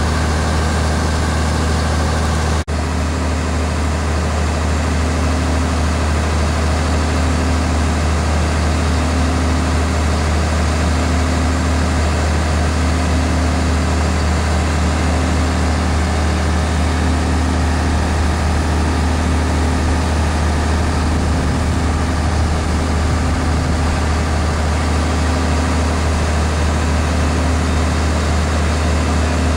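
Mack C125 diesel fire pumper's engine running steadily under load, driving its fire pump while drafting water, with the rush of the deck gun's high stream mixed in. A low tone pulses about every two seconds.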